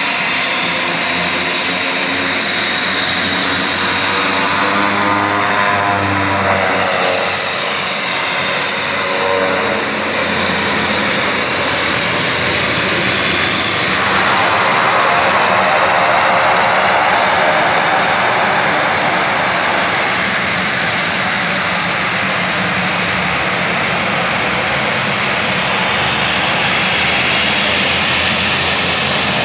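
Twin-engine turboprop plane's engines and propellers running loud on the ground, a steady turbine whine over the propeller drone; the pitch shifts up and down in the first ten seconds as the plane manoeuvres, then holds steadier.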